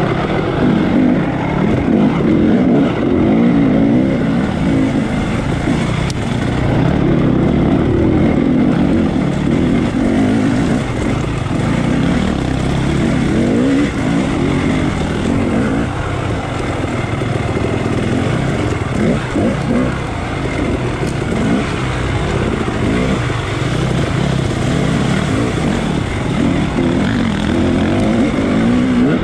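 Dirt bike engine revving up and down continuously as it is ridden hard along an off-road trail, heard from on the bike.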